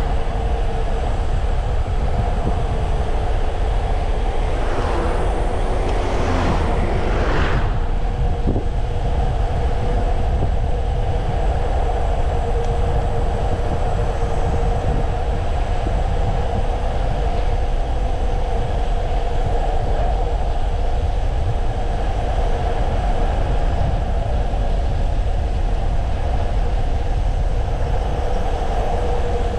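Wind buffeting the microphone and tyre hum of a Brompton folding bike speeding downhill, with a steady whine running under a heavy low rumble. A few brief hissing swells come about five to eight seconds in.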